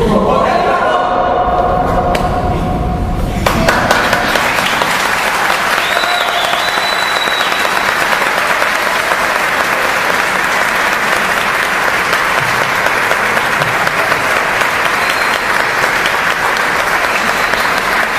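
Mixed choir singing its closing notes, followed from about three and a half seconds in by audience applause that carries on steadily.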